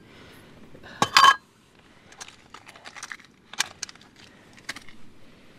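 Metal camping cookware being handled: a sharp clink of metal on metal about a second in, then lighter scattered clicks and knocks.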